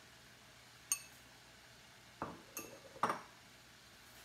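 Utensils clinking and knocking against a glass bowl and an enamelled cast-iron pot as mashed potato is scraped into the pot. Two short ringing clinks, about a second in and again past two and a half seconds, with duller knocks and scrapes around them.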